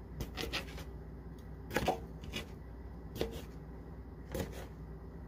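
Kitchen knife halving grape tomatoes on a plastic cutting board: a handful of separate knocks as the blade meets the board, irregularly spaced about a second apart.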